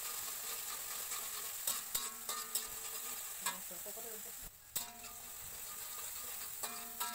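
Chopped onion sizzling in hot oil in a wok, stirred with a slotted metal spatula that scrapes and clicks against the pan now and then.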